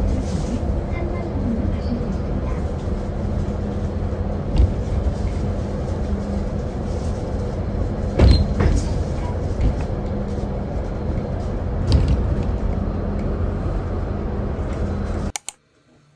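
Steady low rumble and hum of a moving vehicle, with a few light knocks, cutting off suddenly near the end.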